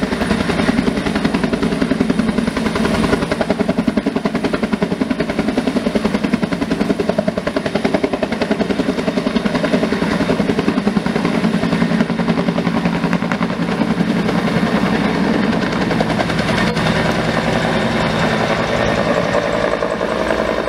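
Two-bladed firefighting helicopter hovering low, its main rotor beating rapidly and steadily over a constant engine drone while it draws water up a snorkel hose into its belly tank.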